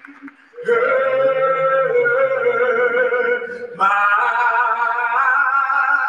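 A man singing a gospel song solo in a strong, full voice, holding long notes with a slight waver. He comes in about half a second in, breaks off briefly near four seconds, then starts a new phrase.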